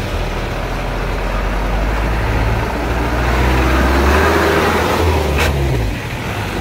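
A motor vehicle's engine running steadily under road noise. There is a short knock about five seconds in, and the low engine hum drops away near the end.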